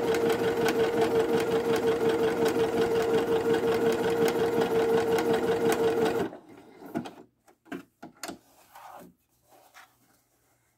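Viking Jade 20 sewing machine stitching a zigzag seam at steady speed: a steady motor hum with rapid, evenly spaced needle strokes. It stops about six seconds in, and faint rustles and clicks of the fabric being handled follow.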